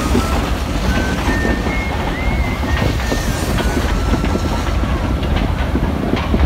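Canadian Pacific freight train passing, led by diesel locomotives: a loud, steady low rumble, with thin high squealing tones that come and go in the middle.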